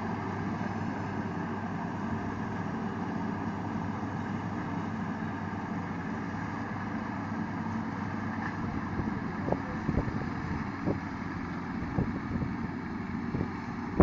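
Rice combine harvester's engine and threshing machinery running steadily under load while it cuts the crop. A few short thumps come in the second half.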